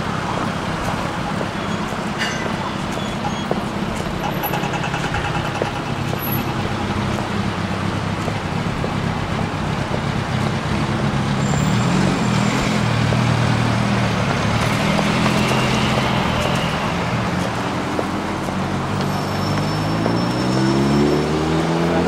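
City street traffic: a steady wash of passing cars and engines. Near the end one vehicle's engine climbs in pitch as it accelerates.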